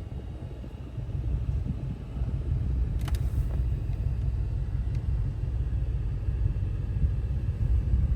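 Ford Raptor R's supercharged 5.2-litre V8 running with a steady low rumble, with a brief faint click about three seconds in.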